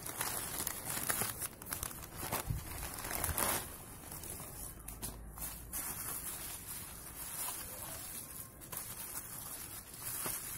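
Plastic mailer bag and bubble wrap crinkling and rustling as a small parcel is unwrapped by hand, with irregular little crackles, a bit louder for the first few seconds.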